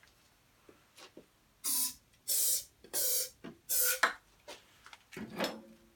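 Aerosol can of brake cleaner sprayed in four short bursts into the engine's intake, to prime it for a start without petrol.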